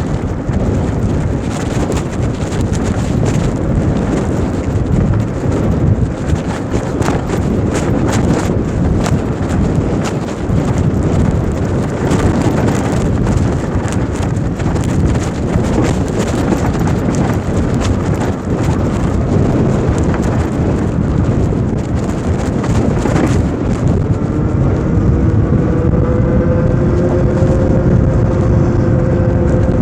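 Heavy wind buffeting the microphone while riding an electric bike. A whine rises and then holds steady over the last few seconds.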